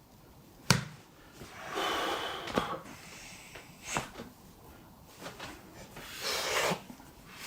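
Joint cracks from a chiropractic adjustment: one sharp crack about a second in and a couple of fainter clicks later, between a person's heavy breaths out.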